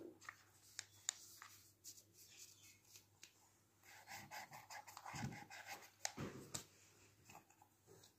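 Faint clicks and scratchy scrubbing of paintbrushes dabbed and rubbed in the pans of a plastic watercolour palette, with a couple of soft low thumps past the middle.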